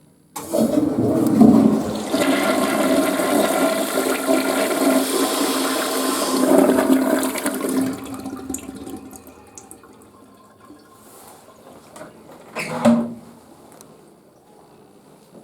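Western-style toilet flushing: the water comes in suddenly and rushes loudly for about eight seconds, then dies away over the next couple of seconds. A brief louder burst follows near the end.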